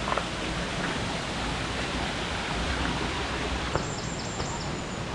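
Waterfall rushing: a steady noise of falling water. About four seconds in, a few faint high-pitched chirps sound over it.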